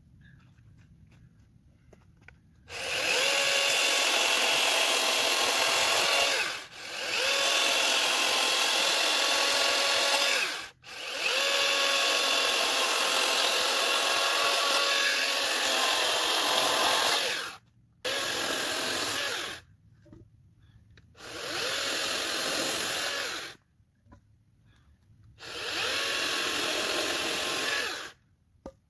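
Cordless 60-volt electric chainsaw cutting through small logs. It runs in six bursts of a few seconds each, with short pauses between, giving a steady high motor whine and chain noise. The first burst starts about three seconds in.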